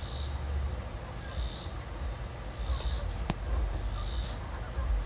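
Insects calling outdoors in a high-pitched pulse that repeats about every second and a quarter, over a low rumble. A single sharp click sounds about three seconds in.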